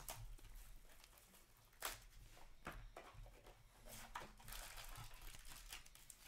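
Faint rustling and light clicking of hockey trading cards and their packaging being handled, with one sharper tick about two seconds in.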